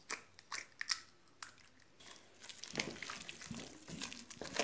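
An egg cracked into a bowl, a few sharp clicks of shell in the first second and a half, then thick churro dough of cooked flour, butter and water squelching as it is worked to take in the egg.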